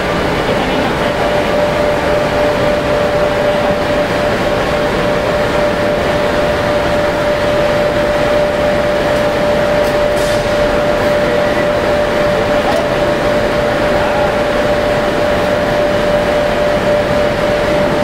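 Gas-fired crucible furnace running at full fire: a loud, steady rushing noise from the burner and its blower, with a constant mid-pitched hum.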